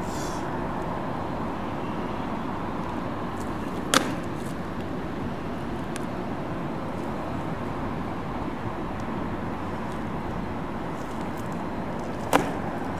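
Steady outdoor urban traffic noise, with two short sharp knocks, one about four seconds in and one near the end.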